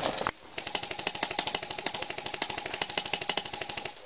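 Airsoft electric rifle firing on full auto: a fast rattle of about fifteen shots a second over a steady whine, in long bursts with a short break just after the start.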